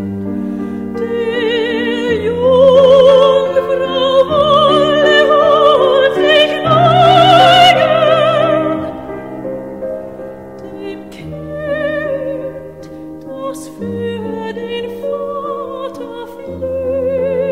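Music: a classical operatic voice singing long, high, sustained notes with wide vibrato over a slow accompaniment whose chords change every couple of seconds. The loudest, highest note comes about halfway through.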